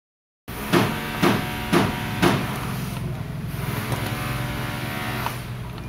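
Honda CRF150's single-cylinder four-stroke engine running after a clutch lining replacement. Four sharp bursts about half a second apart come in the first couple of seconds, then it settles into a steady run.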